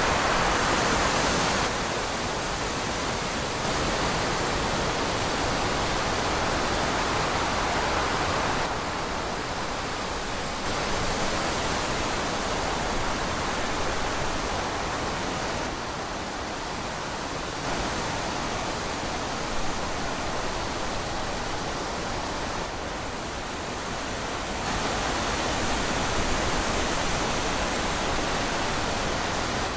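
Wind rushing steadily through trees, its strength shifting up and down every few seconds.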